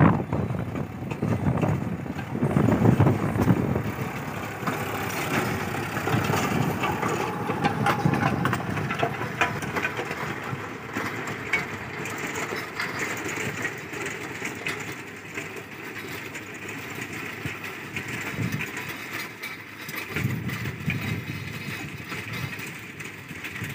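Sonalika 50 HP diesel tractor running under load while pulling a rotavator through dry soil, the engine and churning blades mixed together. It grows gradually fainter as the tractor moves away.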